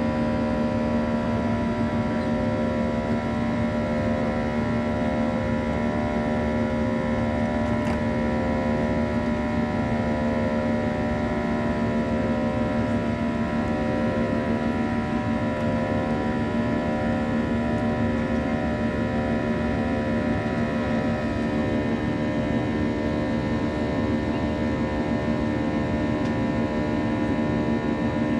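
A Boeing 737-800's CFM56-7B turbofans at climb thrust, heard inside the cabin. They make a steady drone of many stacked tones, the buzzsaw sound of the fan at high power, and the middle tones pulse slowly and regularly.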